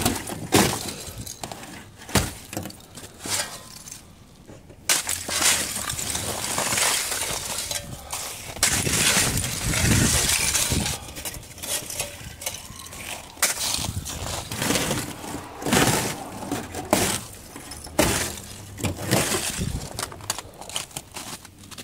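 Freezing-rain ice crust around a car door being broken up: repeated cracking and crunching with brittle chunks clinking together, mixed with stretches of scraping.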